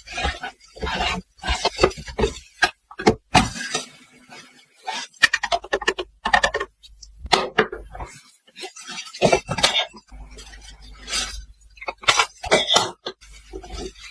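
Small hard plastic toy pieces of a mini laundry set knocking and clinking together as they are handled, in quick irregular taps and clatters, with a low rumble under some stretches.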